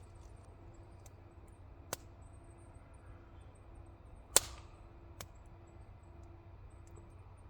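Three sharp knocks or clicks over a faint steady background. The loudest comes about four and a half seconds in, a smaller one about two seconds in, and a faint one just after five seconds.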